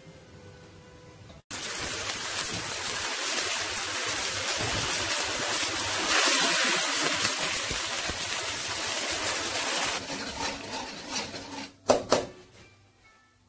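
Sauce sizzling and bubbling in a hot wok, a loud hiss that starts suddenly about a second and a half in and dies down after about ten seconds. Two sharp knocks near the end.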